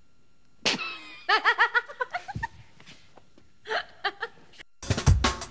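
People laughing in a quick run of short "ha" pulses, with a few shorter laughs after. Near the end, music with drums starts suddenly.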